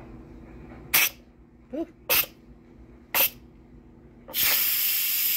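Instant Pot steam-release valve let open for a quick release of the remaining pressure: three short spurts of hissing steam, then a steady loud jet of steam from about four seconds in.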